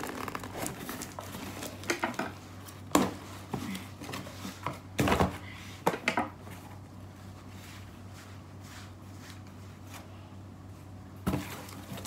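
A plastic parcel being cut open and handled: scattered rustles, crinkles and clicks, busiest in the first half and sparser after, over a low steady hum.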